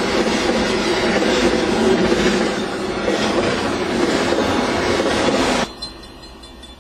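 Freight train of enclosed autorack cars rolling past close by, a loud steady rumble and rattle of wheels on rail. The noise drops off suddenly near the end, leaving the train faint as it moves away.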